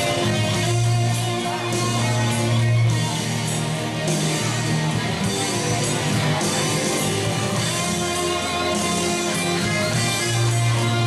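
Music led by guitar, with held bass notes underneath.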